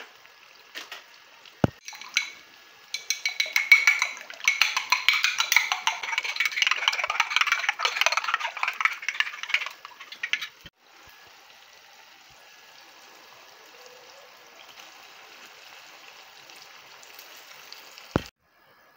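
Raw eggs being beaten in a ceramic dish: a loud run of rapid clicking and scraping lasting several seconds. It stops abruptly and gives way to a pan of tomato sauce sizzling with a steady, quieter hiss.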